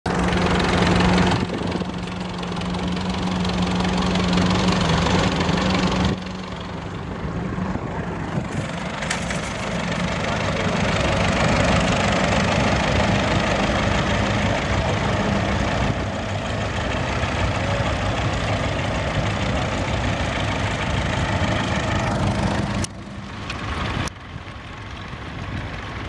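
Vintage tractor engines running under load while pulling ploughs, heard close up in a string of short clips that cut abruptly from one to the next. A steady engine note holds through the first six seconds.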